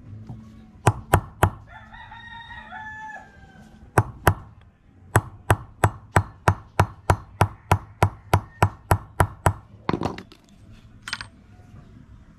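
Hammer driving a concrete nail to punch a hole through a flattened stainless-steel fishing-hook shank on an iron block: three quick metal blows, two more, then a steady run of about fifteen blows at roughly four a second. A rooster crows once between the first blows.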